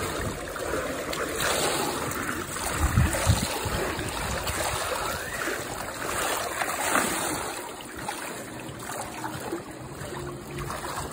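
Swimming-pool water splashing and sloshing steadily as a child swims through it, with a couple of low thumps about three seconds in.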